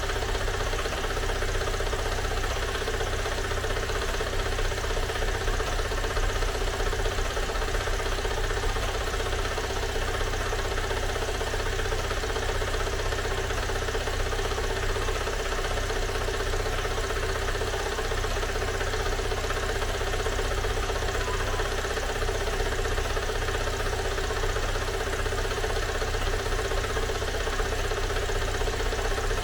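A Great Wall WEY car's freshly rebuilt engine idling steadily with a clacking noise, a tractor-like clatter that the mechanic traces to a pulley wheel.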